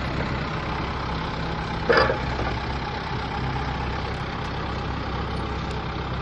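Engine of the equipment idling steadily, with one short loud sound about two seconds in.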